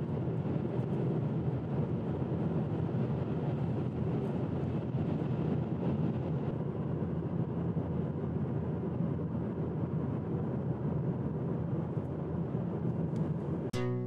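Car driving along a road, a steady even rumble of engine and tyre noise.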